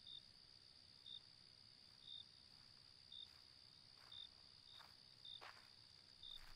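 Crickets chirping: a steady high trill with a louder short chirp about once a second. A few faint soft scuffs sound in the second half.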